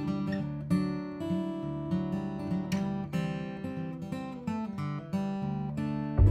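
Background music: an acoustic guitar playing plucked and strummed notes, with a low thump right at the end.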